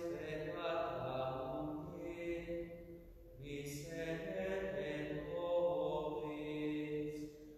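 A single voice singing a slow, chant-like hymn in long held notes: two phrases, with a short breath about three seconds in.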